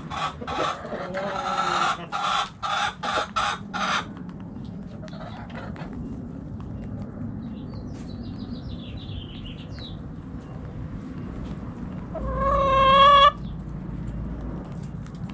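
Backyard chickens in a coop: a hen clucking rapidly in quick even calls for the first four seconds, then softer background clucking with faint high chirps. Near the end comes one loud drawn-out chicken call lasting about a second.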